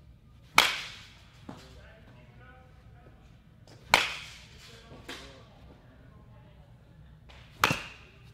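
Baseball bat hitting pitched balls in batting practice: three sharp cracks a few seconds apart, each with a short ringing tail, and a fainter knock about a second after the first two.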